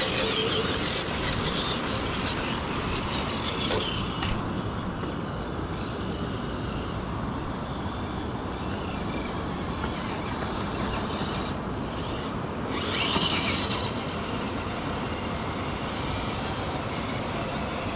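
Steady rushing noise of water running over the shoals. The Traxxas TRX-6 crawler's electric motor and drivetrain whine in short spells near the start and again about 13 seconds in.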